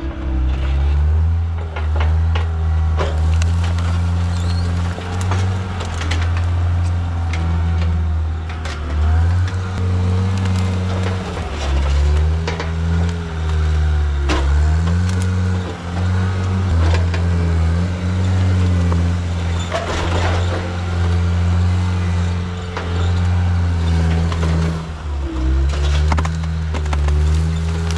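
John Deere track skid steer's diesel engine running under working load, its pitch dipping and rising as the load changes. Scattered knocks and clunks come through over the engine.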